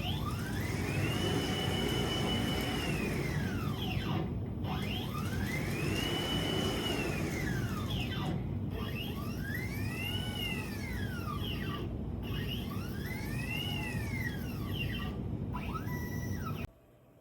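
An electric motor whining, speeding up, holding its speed, then slowing down, four times over, with a steady low rumble beneath; it cuts off abruptly near the end.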